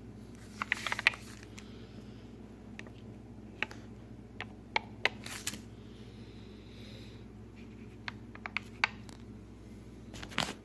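Scattered small clicks and taps of hands and tools working on a tablet during a battery replacement: a quick cluster about a second in, single clicks through the middle, several more near the end. A steady low hum runs underneath.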